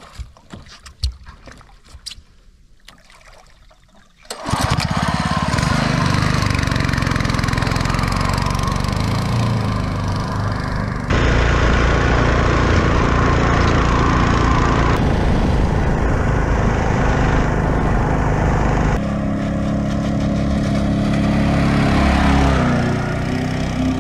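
A few faint clicks and splashes, then about four seconds in a small longtail boat motor comes in suddenly, loud, and runs hard at high revs, driving the propeller that pushes the board across the water.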